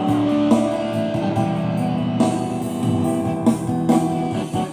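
Instrumental music led by guitar, with held chords and a few sharp beats, without singing.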